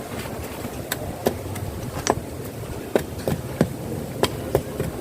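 Sharp knocks of hand tools on wood, about eight at uneven intervals, each with a brief ringing tail, over a steady background hiss.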